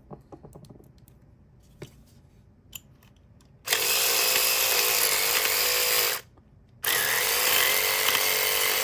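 A few small clicks of a pick and padlock being handled, then a home-made electric lockpick built from a pumpkin-carving tool buzzes in the lock. It runs for about two and a half seconds, stops briefly, then starts again. It oscillates at a speed the maker finds too fast to set the pins consistently.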